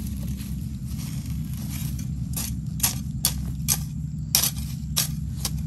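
Garden hoe chopping into soil: sharp strikes at about two a second, starting about two seconds in, over a steady low hum.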